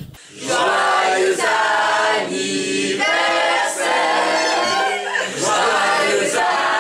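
A mixed group of young men and women singing together without accompaniment, many voices at once in phrases with short breaks between them, starting a moment in after a brief gap.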